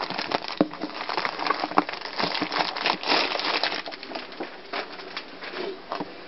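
Packaging being opened and unwrapped by hand: steady crinkling and rustling with many small clicks and snaps.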